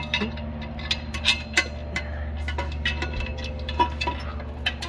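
Scattered light metallic clicks and clinks of titanium exhaust parts and hardware being handled under the car, over a steady low hum.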